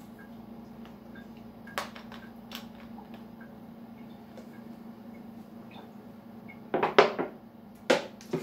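A man drinking from a plastic bottle of water, with a few faint light clicks at first and then several louder crackly noises about seven and eight seconds in, over a steady low hum.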